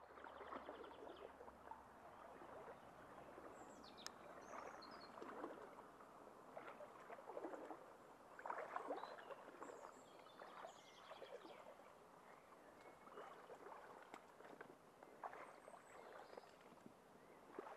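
Faint, irregular rustling and swishing of tall leafy plants brushing against someone pushing through them on foot.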